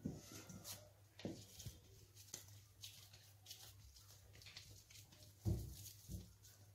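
Faint handling sounds of dough being scooped out of a stainless steel bowl by hand: a few soft knocks and scrapes, with a dull thump about five and a half seconds in, over a low steady hum.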